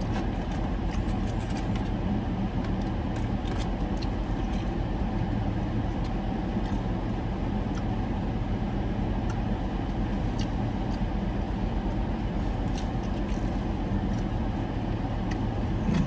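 Steady low hum of a car idling, heard inside the cabin, with a few faint scattered clicks of a man chewing and handling chicken wings.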